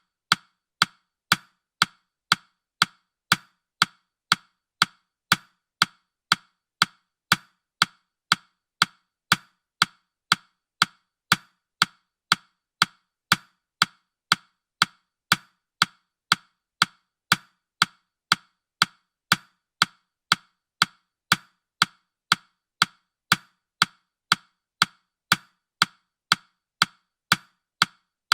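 Countdown timer's ticking sound, short sharp clock-like ticks at an even pace of about two a second.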